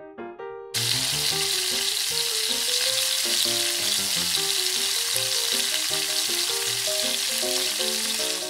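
Food sizzling in a frying pan, a steady hiss that starts abruptly about a second in and cuts off suddenly at the end, over light piano music.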